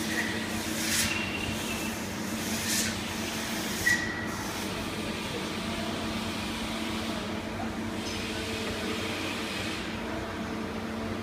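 Steady hum of a powered-up Doosan S390L CNC slant-bed lathe standing at rest, made of several steady tones. A few sharp clicks come in the first four seconds.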